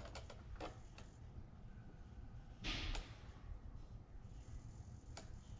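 Low room tone with faint handling noises from hands at a roller shade's headrail: a few light clicks, a brief rustle about three seconds in, and another click near the end.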